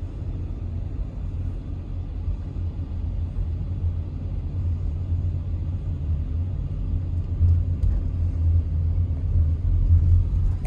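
Steady low rumble, slightly louder near the end.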